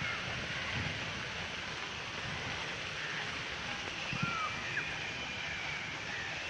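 Steady rushing outdoor noise with a few short bird chirps about four to five seconds in.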